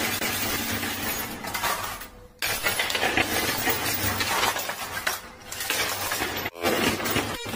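Poker chips and coins clattering on a coin pusher machine as chips tumble over the front edge, a dense continuous clinking. It dips briefly about two seconds in and cuts out abruptly twice near the end.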